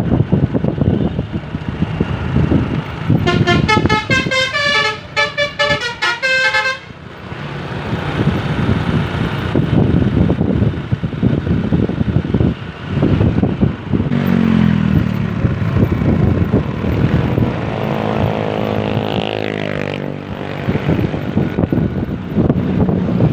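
Bus's basuri multi-tone air horn playing a short tune of quick stepped notes for about four seconds, over engine rumble and wind noise on the microphone. Later a vehicle's engine note falls away.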